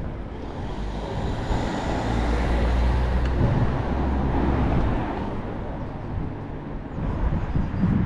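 A motor vehicle driving past on the street: a low engine hum and tyre noise build up, are loudest in the middle, and fade after about five seconds.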